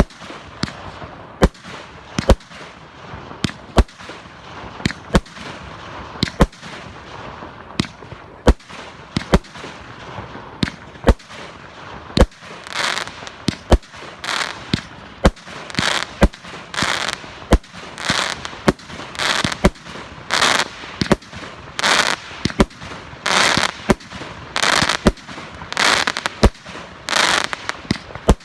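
Classic Fireworks' Panda Killer firework cake firing a long barrage: sharp bangs at a steady pace of a little more than one a second. From about halfway the shots give way to longer, louder bursts in the same rhythm.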